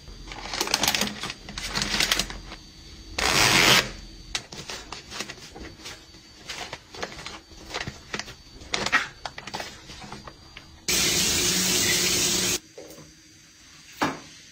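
Hands being rinsed under a bathroom tap, with short splashes of water in the first few seconds. Then the crinkle and rustle of a soft plastic pack of disposable facial towels as a towel is pulled out, a steady hiss of running water for under two seconds, and a single click near the end.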